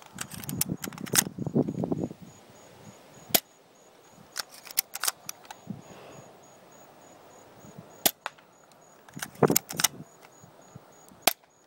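Airsoft gun firing shot after shot, sharp snapping cracks at irregular intervals: a quick run of shots at the start, single shots and small groups after that, and another quick group near the end.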